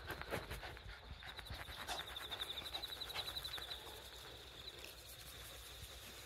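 A leather work glove rubbing and patting a mixed-breed dog's fur, with rustling and scuffing and soft sounds from the dog. A steady, thin, high tone runs underneath and pulses rapidly from about two to four seconds in.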